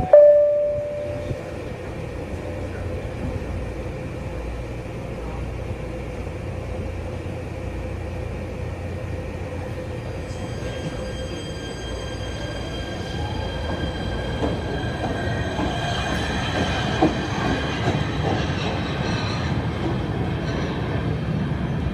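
PATH subway train pulling out of an underground station. The last note of the door-closing chime fades at the start, then a steady rumble as the train moves off. From about ten seconds in there is a high whine, with a tone rising as it picks up speed, then wheel squeal and a few knocks as it runs into the tunnel.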